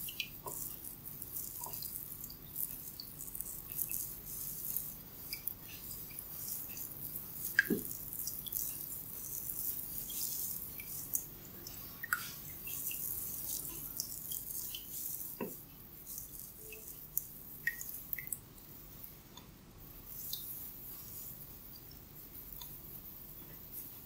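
Hair and scalp crackling under fingers during a head massage: a dense, irregular run of small crackling clicks, with a few louder ones.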